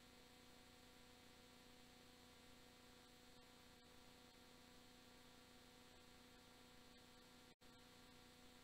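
Near silence with a faint steady hum, dropping out for an instant once near the end.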